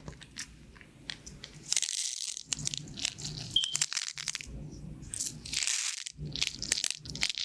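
Pin art toy's pins sliding and rattling in their frame: dense clusters of many fine clicks that come in several swells, with short quieter gaps between.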